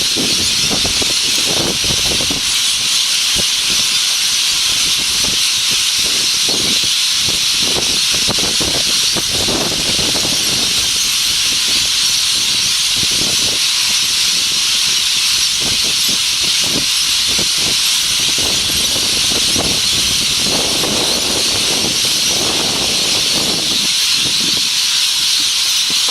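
A flock of hundreds of parrots calling all at once, a dense, shrill, unbroken chorus of high-pitched shrieks that holds at a steady level throughout.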